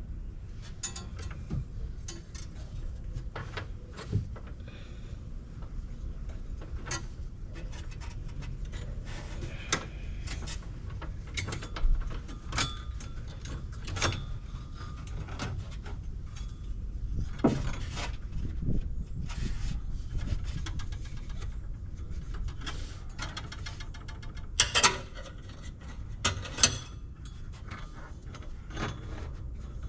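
Scattered clinks, taps and light rattles of hands and tools working on metal parts, with a few louder knocks about 12 seconds in and around 25 to 27 seconds in, over a steady low rumble.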